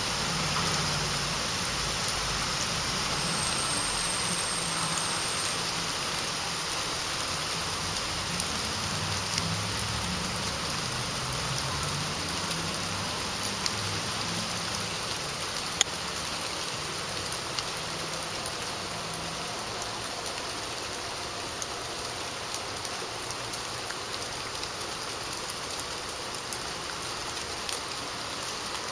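Light rain falling: a steady hiss with scattered drips ticking now and then.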